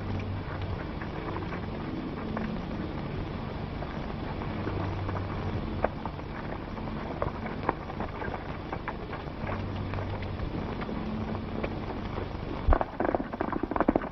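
Horses' hooves moving on dirt as riders mount and ride off, under the steady hiss, hum and crackle of a worn 1930s optical film soundtrack. A sharp knock comes near the end, followed by a quicker, denser run of hoofbeats.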